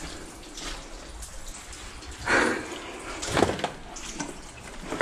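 Footsteps and movement on a wet floor, with two short splashy scuffs, about two and three and a half seconds in.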